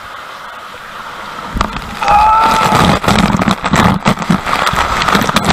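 Water rushing through an enclosed tube water slide, then a sudden loud splash about two seconds in as the rider shoots out into the water, followed by choppy churning and gurgling of water right around the camera.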